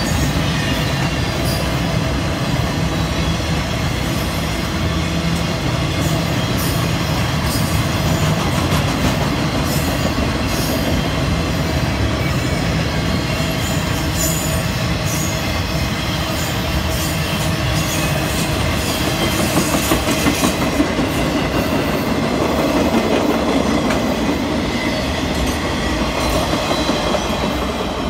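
Freight train of flatcars loaded with welded rail rolling past close by: a steady rumble of steel wheels on the rails, with repeated sharp clicks as the wheels cross rail joints. The sound starts to die away at the very end as the last cars go by.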